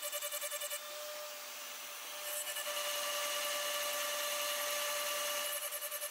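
CNC milling machine cutting through a block with its end mill: a steady whine with a hiss of cutting noise, pulsing about six times a second near the start and again near the end, held even in between.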